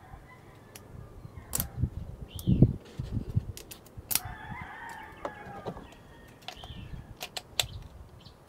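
Klein multi-bit screwdriver shafts, flip sockets and bits clicking and knocking as they are fitted back together by hand. An animal call lasting about two seconds runs in the background near the middle.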